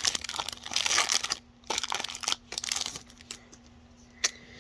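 Foil Pokémon booster pack wrapper crinkling and tearing open for about a second and a half, then scattered crackles as the pack and cards are handled, with a sharp click near the end. A faint steady hum runs underneath.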